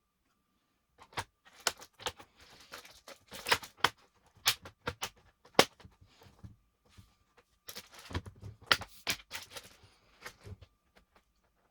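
Irregular sharp clicks, taps and light plastic rattles from handling laptop parts and small tools, starting about a second in.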